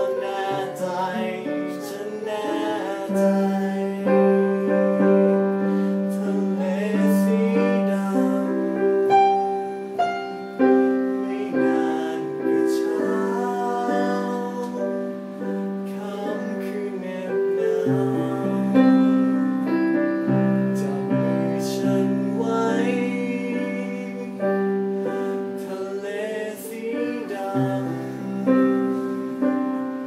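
A man singing a slow Thai pop ballad, holding long notes, over instrumental accompaniment.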